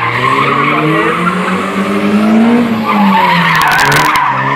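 Mazda MX-5 roadster drifting in tight circles: the engine revs rise and fall while the rear tyres squeal and skid. A short run of sharp clicks comes about three and a half seconds in.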